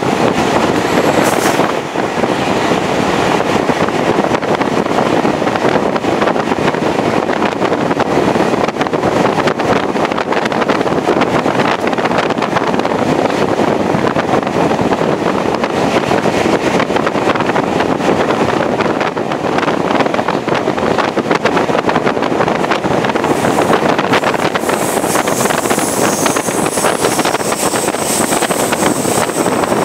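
A train running at speed heard from an open window: a steady rush of wind over the microphone mixed with the running noise of the train, with an added high hiss near the end.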